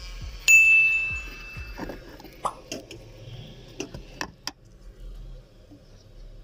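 A single bell-like notification ding sounds about half a second in and rings out over about a second and a half. A few light clicks and clinks follow.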